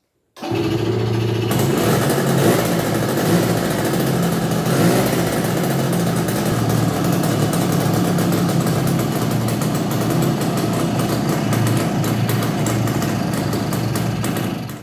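Suzuki K125 single-cylinder two-stroke motorcycle engine running steadily, loud, starting abruptly about half a second in and cutting off just before the end.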